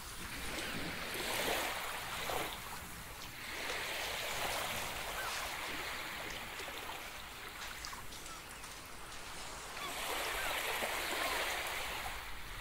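Small waves washing in, the rush swelling and fading every few seconds, with a few faint bird calls.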